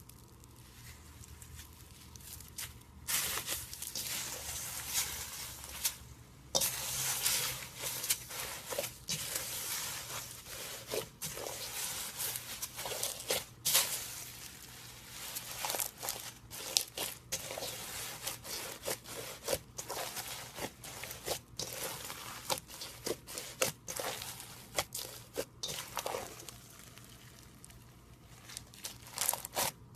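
Slime being squished and stretched by hand, giving irregular wet, sticky clicks and pops.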